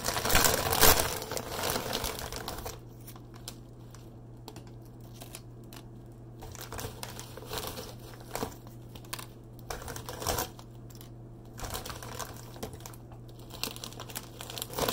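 Plastic Doritos chip bag crinkling loudly as it is shaken and handled, for the first two or three seconds. After that come softer, intermittent rustles and small crackles as chips are taken out of the bag and laid on the counter.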